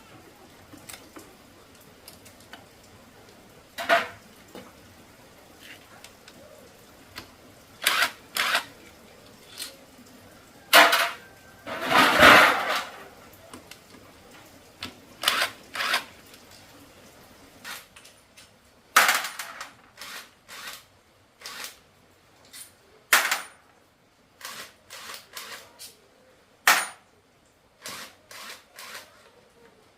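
Metal hand tools and small metal parts clinking and clanking at uneven intervals, with a longer clatter near the middle.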